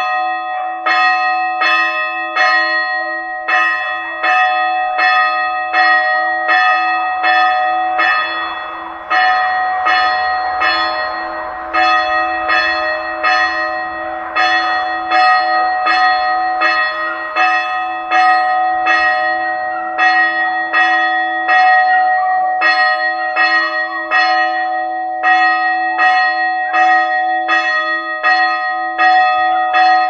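Church bells tolling in a rapid, even stream of strikes, about two a second, with each strike's ringing hanging on beneath the next.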